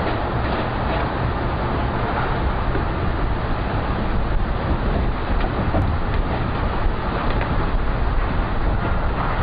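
A steady low rumble of wind buffeting the microphone over tsunami water rushing through a harbour.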